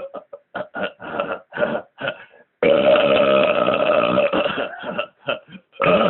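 A man belching on purpose after gulping air: a run of short burps, then one long, loud belch lasting about two seconds starting near the middle, then a few more short burps.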